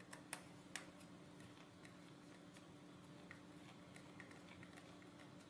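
Near silence with faint small clicks and ticks as a small bolt and nut are handled and turned with a screwdriver in a plastic gear-motor mount on a circuit-board chassis; two sharper clicks come in the first second, over a low steady hum.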